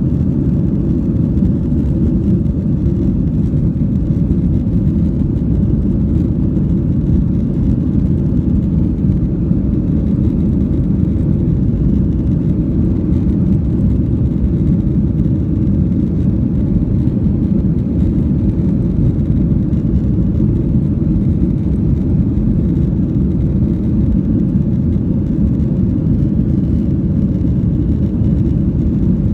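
Steady low rumble of a Boeing 737-800's CFM56 jet engines and airflow, heard inside the passenger cabin.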